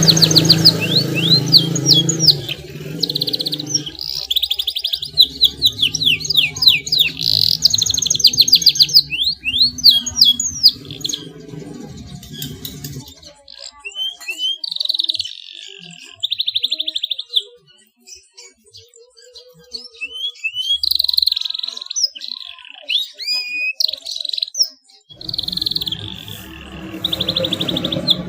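Male domestic canary singing: fast rattling trills and runs of quick rising and falling whistled notes, in phrases with short breaks. A low droning background sound lies under the song for the first half and again near the end.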